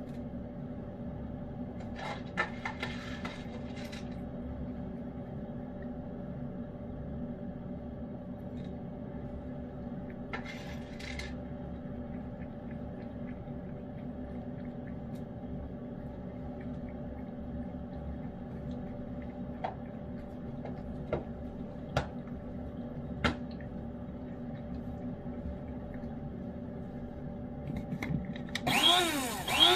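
A cat eating wet food: soft wet chewing and licking with a few sharp clicks, over a steady electrical hum. Near the end there is a louder, short sound whose pitch wavers up and down.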